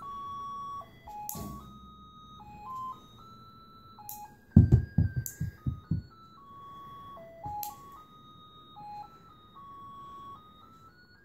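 A simple electronic tune of single pure notes plays throughout. Over it come a few sharp clicks from baby nail clippers cutting a baby's fingernails, and a short run of loud low thumps around five seconds in.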